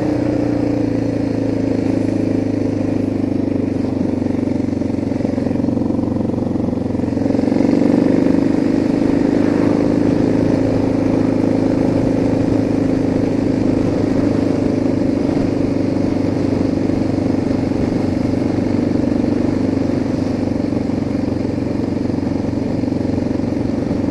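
Suzuki DR650 single-cylinder four-stroke motorcycle engine running on the move, with wind noise on a cheap dictaphone microphone. The engine note dips a couple of seconds in and rises again about eight seconds in.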